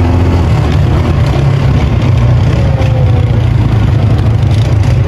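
A vehicle engine running steadily: a loud, continuous low hum.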